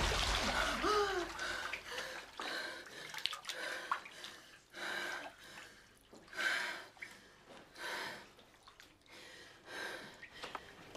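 A woman breathing hard in short, separate gasping breaths, about one a second, as she lies in a bathtub, with bath water moving faintly.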